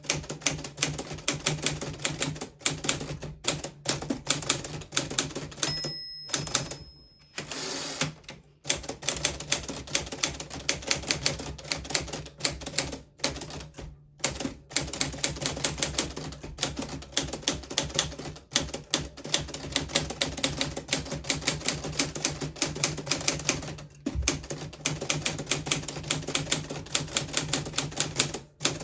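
Keystrokes on a 1940s Smith Corona Silent manual typewriter: rapid, uneven clacks of the typebars striking the platen, broken by a few short pauses.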